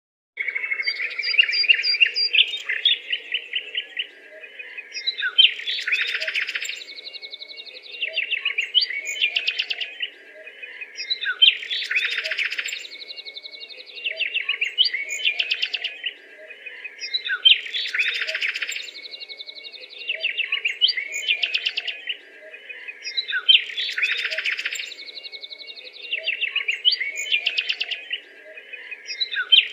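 Songbirds chirping and trilling busily, the same sequence of calls repeating about every six seconds, over a faint steady hum.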